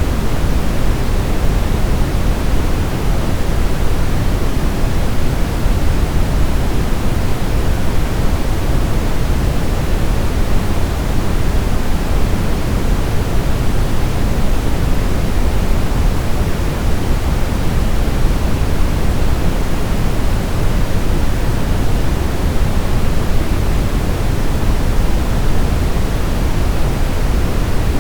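Steady brown noise: an even, deep rushing hiss, strongest in the bass, with no change throughout.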